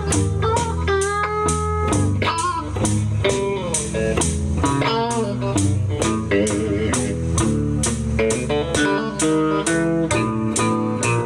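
Live blues instrumental: electric guitar playing bent, sustained notes over a bass line and a steady beat.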